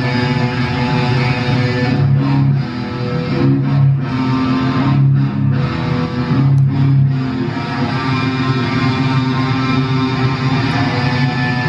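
Rock music dominated by sustained electric guitar chords over a bass line.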